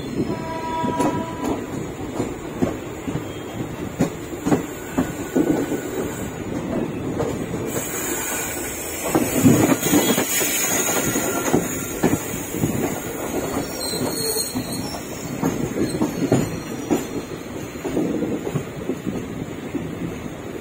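Train wheels clattering over rail joints and points, an irregular run of knocks, with brief high wheel squeals now and then.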